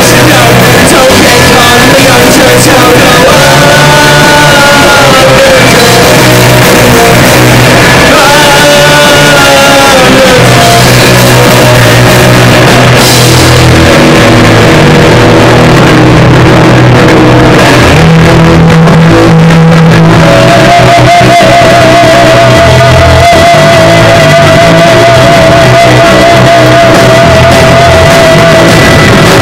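Live rock band playing loud: electric guitar, bass guitar and drum kit, with a sung vocal line over the first part. In the second half a single high note is held with a wavering pitch for several seconds.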